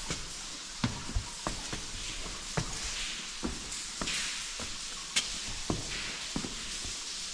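Footsteps of a person walking on rough, stony ground, a sharp step about every half second over a steady hiss.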